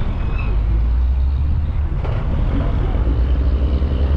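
Car driving on an asphalt road, heard from inside the cabin: a steady low rumble of tyre, road and engine noise.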